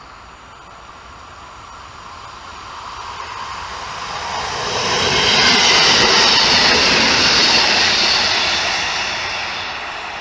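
EN57 electric multiple unit passing close by at speed. The rushing of wheels on rail swells to its loudest about six seconds in, then fades as the train moves away.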